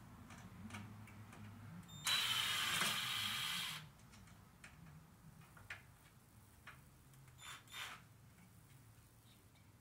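Cordless drill/driver running in one burst of under two seconds, about two seconds in, driving a screw to fit a door's strike plate. A few light clicks and knocks follow.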